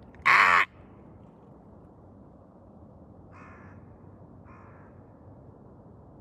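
Crows cawing from a circling flock: one loud caw near the start, then two fainter caws about a second apart a few seconds later.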